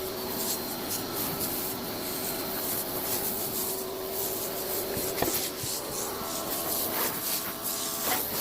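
Greenworks 2000 psi electric pressure washer running with a steady hum while it sprays soapy water onto a car, a constant hiss with irregular spattering.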